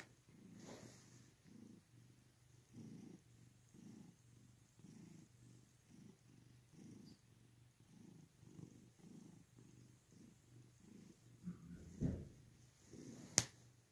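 Long-haired tabby cat purring faintly while being stroked, the purr swelling and fading about twice a second. Near the end there is a brief thump and then a single sharp click.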